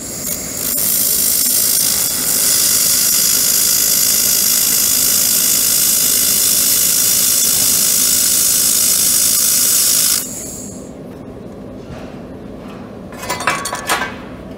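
Handheld laser welder welding a joint in 2 mm steel square tube: a loud, steady high hiss for about ten seconds that then cuts off. A few metal clinks near the end as the welded tube is handled.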